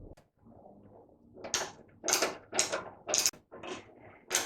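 Screwdriver undoing the screws that hold an oven's outer door panel to the inner door: a run of short, sharp clicking strokes, about two a second, starting about a second and a half in.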